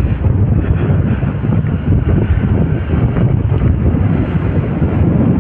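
Hero XPulse 200 4V single-cylinder motorcycle running at a steady speed, its engine drone mixed with wind buffeting the camera microphone.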